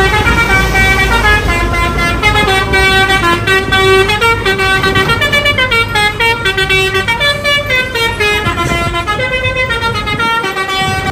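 Bus telolet horn, a multi-tone musical air horn, playing a melody of short held notes that step up and down, over the low rumble of the bus engine.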